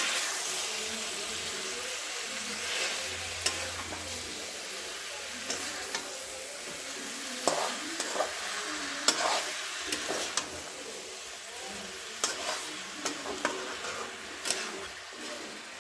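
Chicken frying in a pan with a steady sizzle while it is stirred, with sharp clicks and scrapes of a utensil against the pan every second or so.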